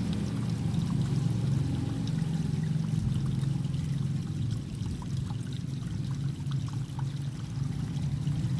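Water running steadily in a small irrigation ditch, with a few faint ticks.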